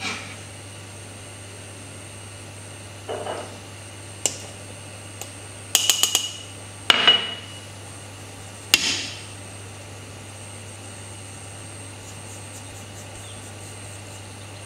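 A handful of sharp knocks and clinks, some in quick double or triple clusters, over the first nine seconds, with a steady low hum underneath.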